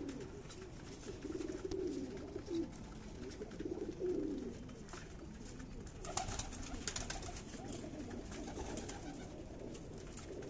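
Domestic pigeons cooing: several low, wavering coos repeat and overlap. A cluster of light clicks and rustles comes about six seconds in.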